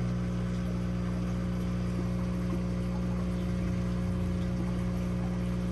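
Aquarium filter pump running steadily, a constant low electrical hum with a wash of moving water over it.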